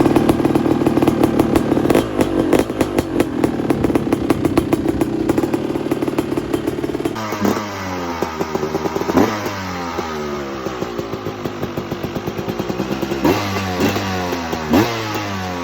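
250cc two-stroke motocross bike engine running fast and steady at high revs. About seven seconds in it changes abruptly to a popping idle broken by several sharp throttle blips that rise and fall quickly.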